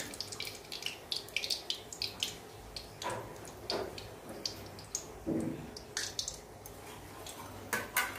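Hot oil in a wok crackling and sizzling in short, irregular pops as a fried malpua is lifted out on a wire skimmer and left to drain over it, with a few sharp metal clicks from the skimmer and spatula.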